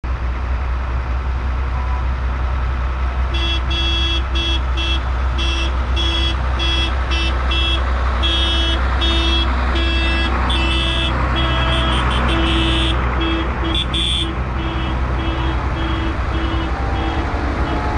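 Tractor engines running with a steady low rumble, and about three seconds in a horn starts sounding a long run of short, uneven toots. The toots stop shortly before the end.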